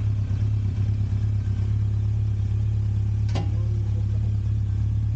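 Motorcycle engine running at a steady speed, a loud constant low hum, with one brief sharp click about three seconds in.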